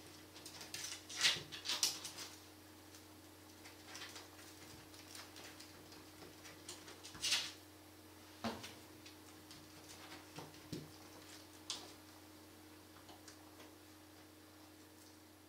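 Ferret scratching and pawing at the edge of a door, its claws scraping and clicking on the wood and tile floor in irregular bursts, with a sharp knock about eight seconds in as it pushes at the door.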